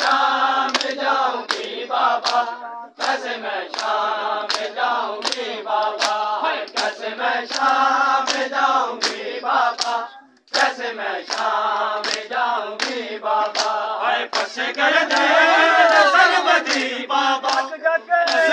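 Mourners chanting together while beating their bare chests with their palms in matam, the slaps landing in a steady rhythm of roughly three every two seconds. The sound breaks off briefly about ten seconds in, and near the end the voices swell louder and rougher.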